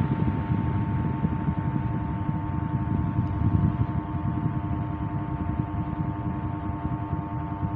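Electric pedestal fan running on a homemade 230 V AC speed controller: a rush of air with a steady electrical hum from the motor, slowly getting quieter as the speed is turned down.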